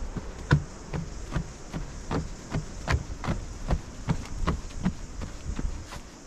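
A runner's footfalls on a trail, an even rhythm of about two and a half steps a second, over a steady hiss.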